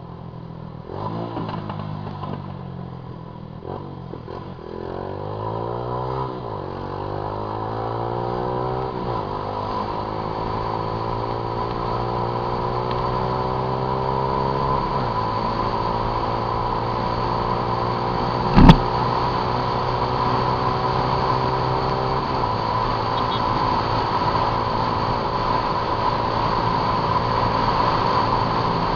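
Honda CG Titan 150's single-cylinder four-stroke engine running under way, its note climbing steadily as the motorcycle accelerates. A single sharp, loud bang comes about two-thirds of the way through. Near the end the engine note sinks into a steady rushing noise.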